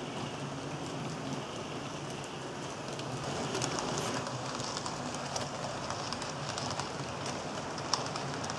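HO-scale model passenger train, an EMD E8 model pulling passenger cars, rolling along the track: a steady rushing wheel noise over a low hum, with rapid fine clicking of wheels over rail joints from about three seconds in as the cars pass close by, and one sharper click near the end.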